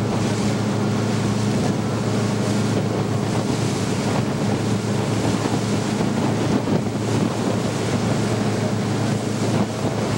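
A boat's engine running steadily, with water rushing past the hull and wind buffeting the microphone.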